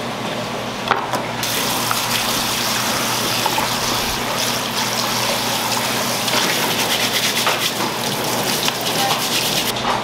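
Water from a kitchen sink's pull-down spray nozzle gushing into a plastic bowl to rinse seafood. It starts suddenly about a second and a half in and cuts off just before the end. A single knock comes shortly before it.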